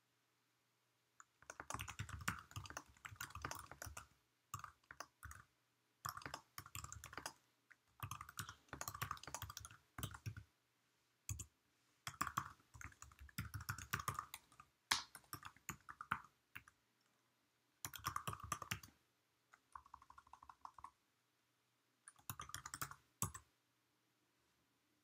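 Typing on a computer keyboard: bursts of rapid keystrokes with short pauses between them.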